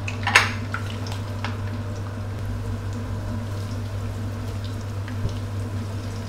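Shiitake mushrooms and textured vegetable protein frying in shallow oil in a wok, a steady sizzle over a low hum. There is a sharp clatter about half a second in and a light knock near the end as the food is turned with a wooden spatula.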